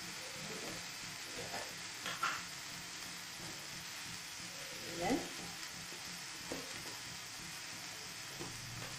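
Onions frying in oil in a pan, a faint steady sizzle, with a few brief light knocks of kitchen utensils, the loudest about five seconds in.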